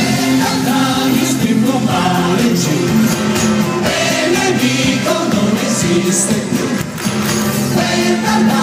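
Live band music with singing, a concert recording of a rock band covering anime theme songs.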